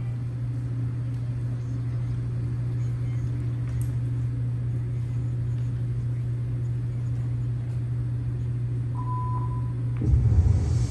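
Steady low hum, with a short high beep about nine seconds in and a brief loud rush of noise about a second before the end.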